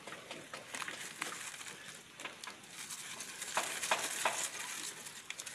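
Leaves rustling and crinkling as hands unwrap leaf-wrapped bundles of ingredients: an irregular run of soft crackles with a few sharper ones in the second half.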